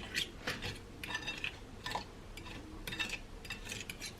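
Eggs and seasoning being beaten in a bowl: a utensil clinking and tapping against the bowl in quick, irregular strokes, working out the lumps.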